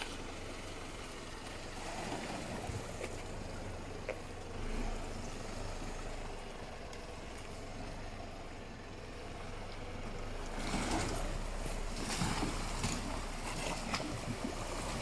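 A dual-cab 4x4 ute's engine running at low revs as it crawls through mud and into a creek crossing, with water sloshing and splashing around the wheels, louder from about ten seconds in.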